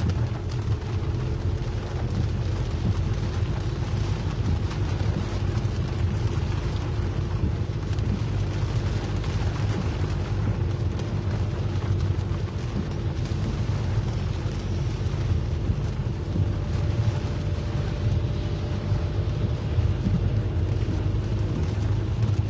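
Steady low rumble and hiss of a car driving on a rain-soaked road, heard from inside the cabin: engine and tyre noise on wet tarmac, with a faint steady hum.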